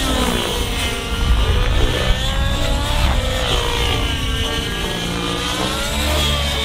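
Radio-controlled 3D aerobatic helicopter flying low passes, its rotor and motor whine sweeping up and down in pitch as it flips, climbs and passes by.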